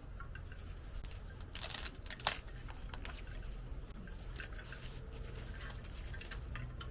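Dry corn husks being torn and peeled back from an ear of sweet corn: crackling and tearing, with a louder cluster of crackles about two seconds in.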